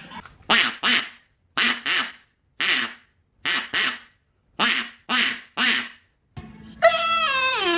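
A dog giving a run of about ten short, harsh, quack-like honks, mostly in pairs, then a long wavering howl near the end.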